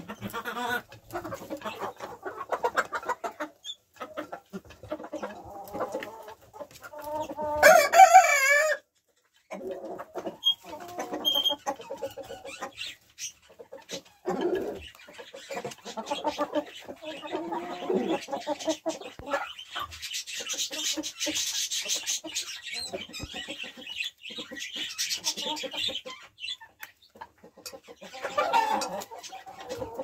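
A flock of barred hens clucking and chattering, with one loud, wavering call about eight seconds in.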